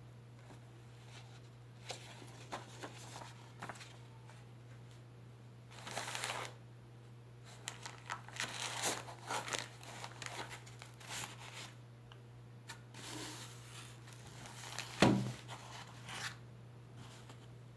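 Packaging being handled and opened by hand: irregular crinkling and tearing of wrapping, with a single louder knock about fifteen seconds in.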